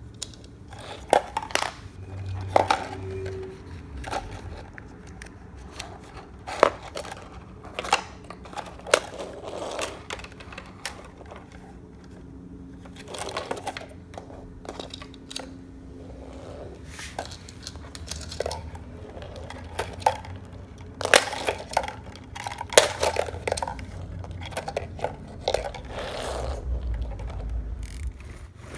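Toy cars being handled and moved about: irregular clicks, knocks and scrapes of small die-cast and plastic pieces, a few sharper taps standing out.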